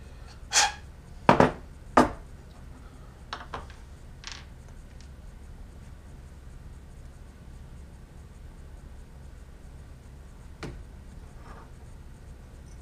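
Small metal parts and tools being handled and set down on the CNC machine's wooden wasteboard: a handful of sharp clicks and knocks in the first few seconds, then one more near the end.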